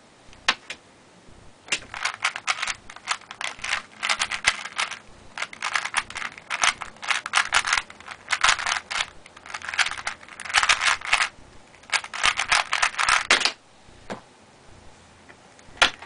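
3x3 Rubik's cube being turned fast by hand in a speedsolve: rapid plastic clicking of the layers in bursts with short pauses, stopping suddenly about thirteen and a half seconds in. A single sharp knock near the end.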